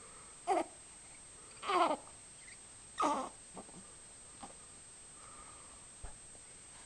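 Young baby cooing: three short vocal sounds about a second apart, the pitch wavering within each, followed by a few small soft sounds.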